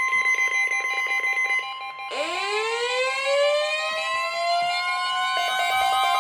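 Weather-radio warning alarm: a steady high tone (the 1050 Hz NOAA alert tone) layered with rapid pulsing beeps. About two seconds in, a siren starts winding up, rising in pitch, and pulsing beeps come back near the end.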